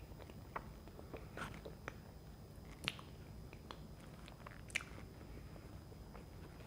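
A person chewing a mouthful of soft chocolate fudge cake with the mouth closed: faint, wet mouth clicks, with two sharper clicks about three and about five seconds in.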